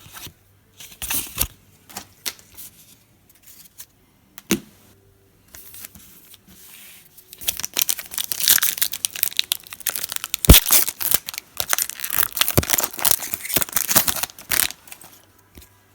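A 2016 Panini Contenders football card pack's wrapper being torn open and crinkled: scattered light clicks and handling at first, then a dense run of crackling and tearing from about halfway that lasts several seconds.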